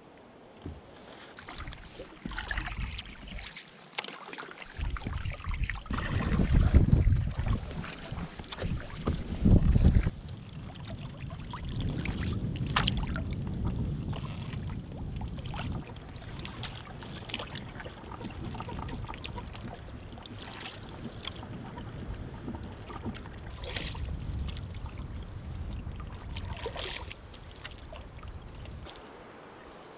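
Water splashing and rushing around a canoe on a river, with irregular paddle-like splashes, and wind buffeting the microphone in the first ten seconds.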